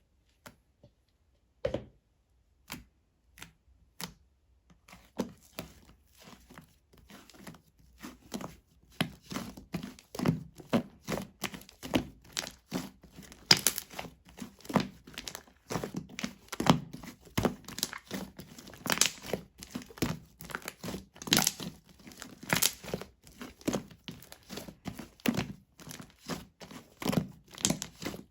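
Slime being played with by hand: a few separate clicks at first, then from about five seconds in a dense, irregular run of sticky clicks and pops as it is pressed, folded and stretched.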